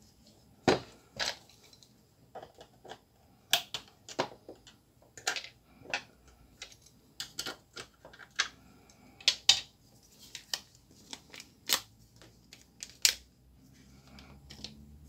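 Irregular sharp plastic clicks and taps from a Samsung MLT-R204 imaging drum unit's plastic housing as it is handled and its chip is pried out with a small screwdriver, about twenty in all.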